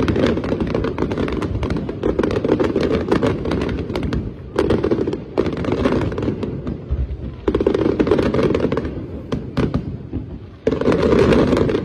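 Aerial fireworks display: rapid volleys of bangs and crackling from bursting shells, coming in waves every couple of seconds, with a fresh loud barrage near the end.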